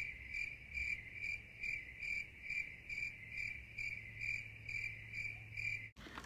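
Cricket chirping sound effect, the 'crickets' gag for an awkward silence after a joke: one steady chirp repeating a little over twice a second, cut off suddenly near the end.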